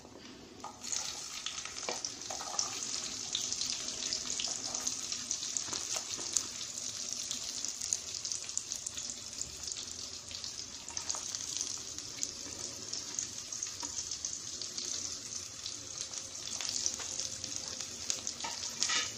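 Chopped shallots, ginger and green chillies sizzling in hot coconut oil in a clay pot, starting about a second in and running on as a steady hiss with frequent small crackles.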